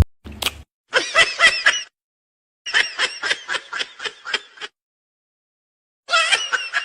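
High-pitched laughter in three bouts of quick, pulsing giggles.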